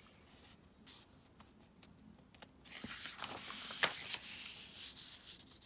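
A picture book's paper page being turned by hand: a soft swish about a second in, then a longer papery rustle with a sharp crackle at its loudest point a little past the middle.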